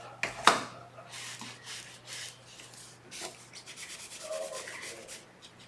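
Stray glue being rubbed off paper: a run of short, scratchy rubbing strokes, with a sharp tap about half a second in.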